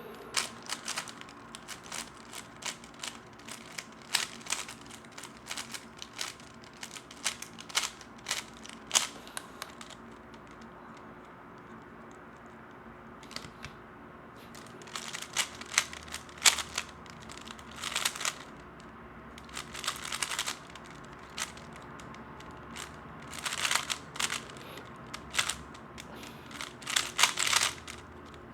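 Plastic 3x3 speedcube being turned fast in the hands, dense runs of clicking layer turns. The clicking breaks off for a few seconds about a third of the way in, then comes back in quick bunches.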